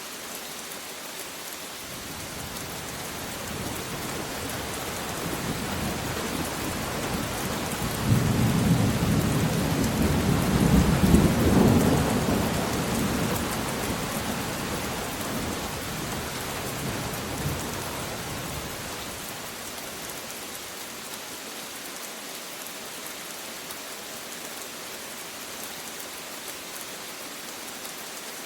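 Steady rain with a long roll of thunder that builds from about two seconds in, cracks loudest around eight to twelve seconds, and rumbles away to nothing by about twenty seconds.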